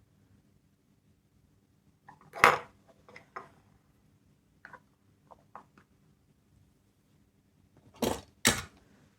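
Small plastic capsule toys being handled, giving sharp clicks and knocks: one loud knock a couple of seconds in with lighter clicks around it, scattered light clicks in the middle, and two loud knocks close together near the end.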